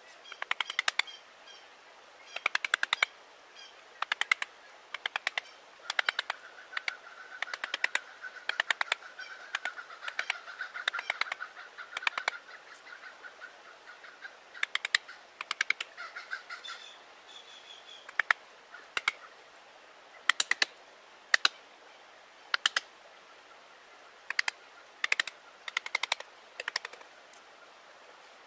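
Birds calling in woodland: short bursts of rapid, sharp chattering chirps recur every second or so. A steadier held tone runs through the middle.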